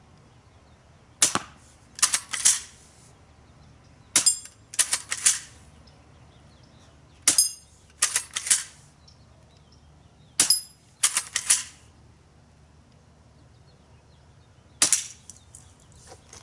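Daisy Model 25 spring-piston BB rifle fired repeatedly: five sharp cracks about three seconds apart, each followed by a quick rattle of clacks as the pump action is worked to cock it for the next shot.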